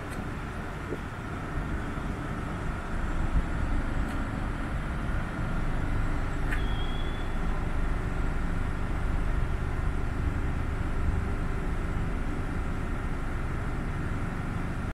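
SBB Re 460 electric locomotive and EW IV passenger coaches rolling along the platform: a steady low rail rumble that swells about three seconds in and then holds, over a faint steady high hum. A brief high squeak comes about halfway through.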